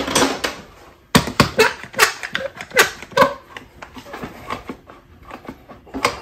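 One-handed squeeze bar clamps being fitted onto a wooden press and squeezed tight. A run of sharp clicks and knocks starts about a second in, loudest over the next two seconds, then continues as smaller, quicker clicks.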